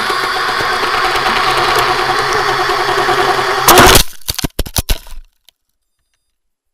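Brushless motors and propellers of a 210-size quadcopter drone running with a steady whine, then a loud crash impact a little under four seconds in, followed by a few sharp knocks, after which the sound cuts off dead.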